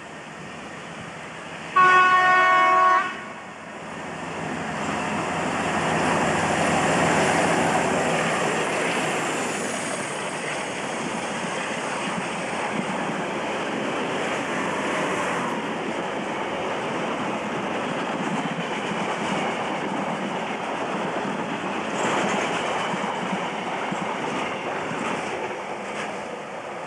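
British Rail Class 47 diesel locomotive sounding one horn blast about a second long, then passing close with its engine running, followed by a long rake of container wagons rolling by with wheels clicking over the rail joints.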